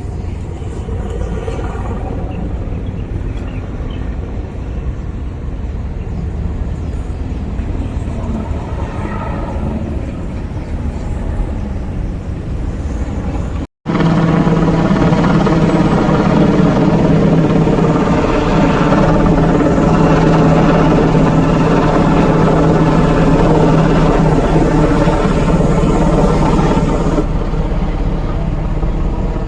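Military aircraft flying overhead: steady engine noise, then a cut about halfway in to a louder, steadier drone with a strong low hum.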